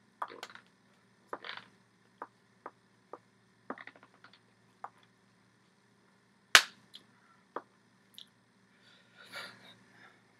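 Scattered sharp clicks and slaps from hands striking each other and the chest while signing, about a dozen in all. The loudest is one clap-like smack about two-thirds of the way through, and there is a softer brushing rustle near the end.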